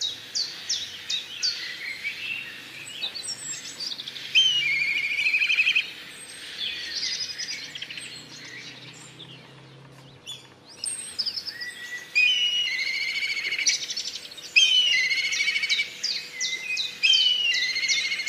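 Small songbirds singing: quick repeated chirps, then trilled, whistled phrases, a quieter lull midway, and more overlapping trills through the second half.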